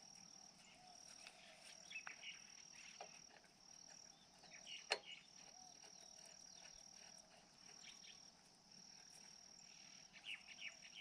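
Faint, steady high-pitched insect trilling in long stretches with short breaks, and a single sharp click about five seconds in.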